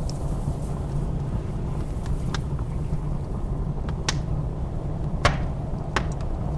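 Log fire crackling in a fireplace, giving a handful of sharp pops at irregular intervals. Under it runs the steady low roar of blizzard wind.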